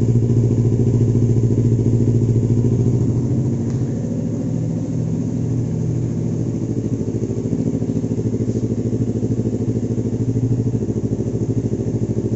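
Yamaha R25 parallel-twin engine idling steadily through a newly fitted KEA full-system aftermarket exhaust with a bent header and black silencer.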